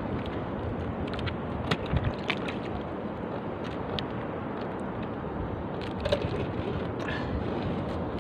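Water lapping against the hull of a small outrigger boat, a steady wash, with a few light clicks and taps from hands working bait and line.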